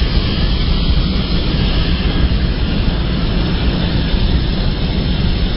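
A handheld flame torch's jet of fire blasting steadily: a continuous rushing noise with a strong low rumble.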